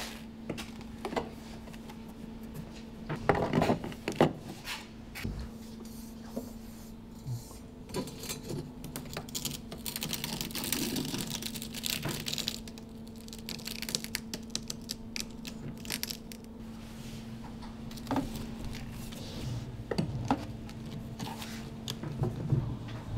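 Light clinks, clicks and knocks of metal trim profiles and ceramic skirting tiles being handled and set in place, with a few sharper knocks about three to four seconds in and some scraping in the middle. A faint steady hum runs underneath.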